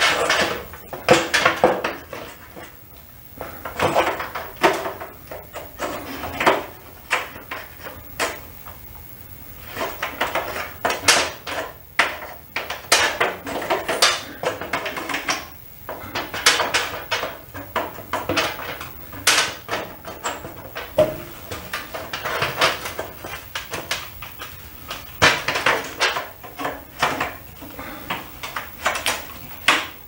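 An LED replacement tube being fitted into a metal fluorescent fixture's lamp holders: repeated clicks, taps and rattles in clusters with short pauses, as the tube's pins are worked into the sockets and turned to lock.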